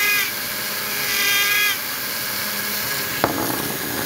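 Small hand-held rotary tool (mini drill) running with a high whine that comes on in two short spells as its bit cuts tread grooves into a small rubber toy tire. A single sharp knock about three seconds in.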